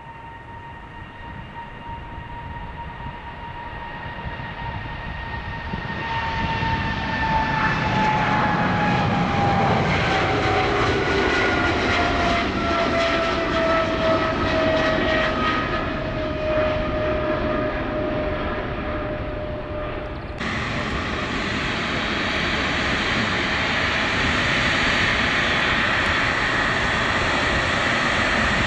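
Boeing 777 jet engines under take-off power, growing louder as the airliner climbs past, with a whining fan tone that slides down in pitch as it goes by. About 20 seconds in, the sound changes abruptly to a second Boeing 777, a freighter, its engines running steadily with a high whine.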